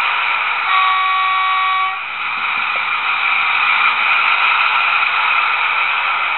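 Trix H0 model of a DB V 100 diesel locomotive with a DCC sound decoder: about a second in, its horn sounds once, a chord of several steady tones lasting just over a second, over the model's steady running sound.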